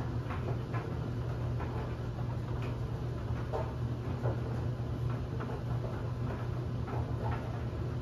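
LG DLE7300WE electric clothes dryer running, its drum tumbling a load of bed linens: a steady low hum with irregular light ticks and taps as the laundry falls.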